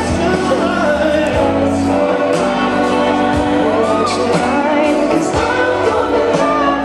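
Pop song with singing played loud over a DJ sound system in a large hall, with a steady beat.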